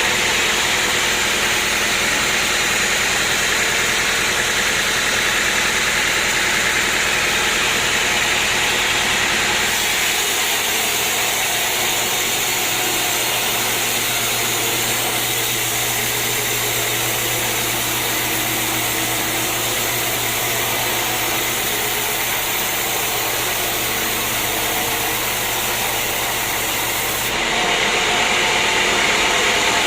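Sawmill machinery running steadily, with the sound changing abruptly about ten seconds in and again near the end.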